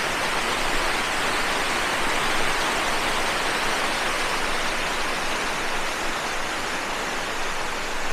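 Waterfall plunging into its pool, a steady even rushing of falling water.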